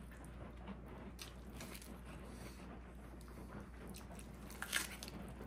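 A person biting into and chewing a lettuce-wrapped vegan protein burger: faint, scattered wet mouth sounds, with one sharper, louder click about three-quarters of the way through.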